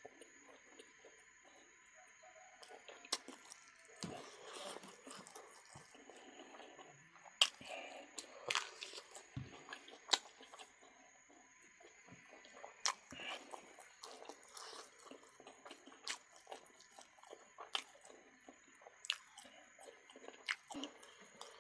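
Close-miked chewing and biting of duck meat, with wet, squishy mouth sounds and sharp clicks scattered irregularly throughout.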